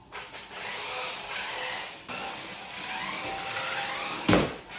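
Small electric motors of a 4WD remote-control stunt car whirring, their pitch rising and falling as the car speeds up and slows. A single loud thump comes about four seconds in.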